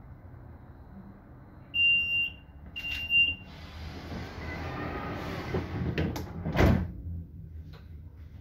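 Two high warning beeps from the door of a GYSEV Stadler FLIRT electric train, then a hiss lasting a few seconds as the sliding passenger door closes, ending in two thumps as it shuts. The train's low steady hum runs underneath.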